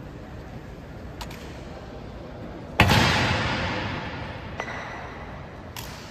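A single loud bang about three seconds in that rings out with a long echo, with a few faint clicks before and after it.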